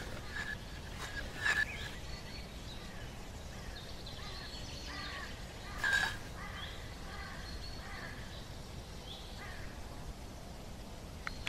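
Steady outdoor background noise with birds chirping here and there. There is a brief louder sound about a second and a half in, and a stronger one about six seconds in.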